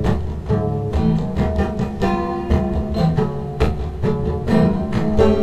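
Instrumental background music with a steady beat and shifting pitched notes.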